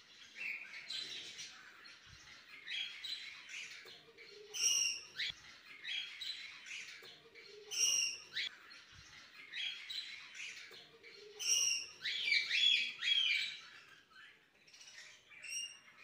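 A colony of caged long-tailed finches twittering and chirping. A louder, clear call stands out about every three to four seconds.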